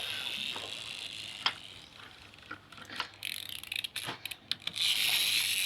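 Small electric motor and plastic gears of a toy vehicle whirring, fading out about two seconds in and starting again near the end, with a few sharp clicks in between.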